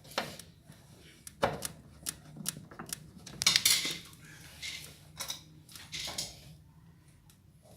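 Irregular clicks, knocks and short clatters of hand tools and metal parts as a drain pump is unfastened inside a washer-dryer cabinet.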